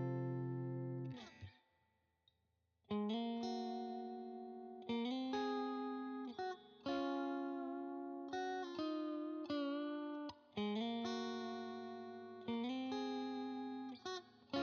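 Alder-body electric guitar with a single-coil pickup played through a crunch tone. A chord rings and is cut off about a second in; after a short pause comes a run of struck chords and notes, each left to ring out, some with bends and vibrato.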